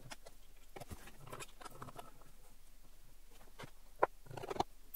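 Small steel parts handled at a steel machine vise: soft clicks and light scrapes, with one sharper knock about four seconds in followed by a few quick clicks.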